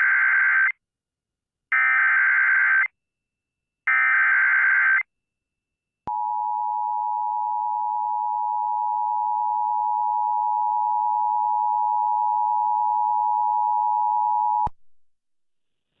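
Emergency Alert System signal on an AM radio broadcast: three one-second SAME header data bursts, then the steady two-tone attention signal held for about eight and a half seconds before it cuts off sharply. It opens a severe thunderstorm warning.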